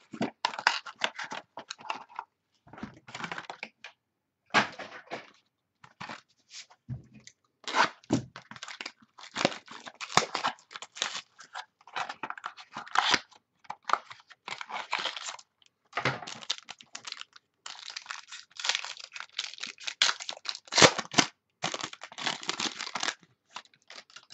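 A trading-card hobby box's packaging being torn open and handled: irregular rips, crinkles and crackles in quick succession, as a sealed mini box is taken out and opened to reach the cards.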